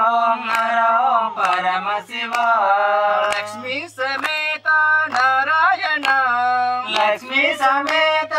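A small group of men and a woman singing a group song together in long held, gliding notes, with sharp hand claps keeping time under a second apart.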